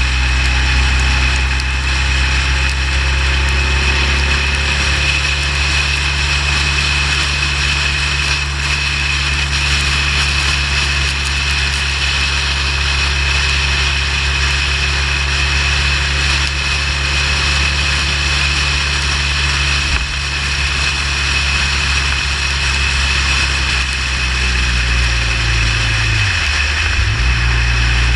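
Motorcycle engine running steadily on the move, under a steady rush of wind and road noise. Near the end the engine note dips briefly and then comes back.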